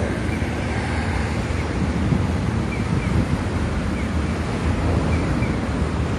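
Wind buffeting the microphone outdoors: a loud, steady rushing rumble, with faint short high chirps now and then.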